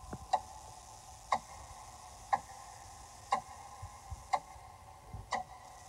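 Clock ticking at an even pace of about one tick a second, over a faint steady hum.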